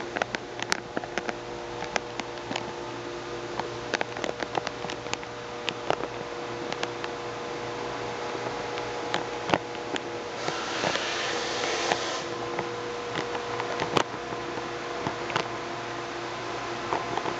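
Makgeolli fermenting in a tank: bubbles of gas popping at the surface in a steady, irregular patter of small pops that sounds like rain, over a steady machine hum. About halfway through there is a brief hiss lasting a second or two.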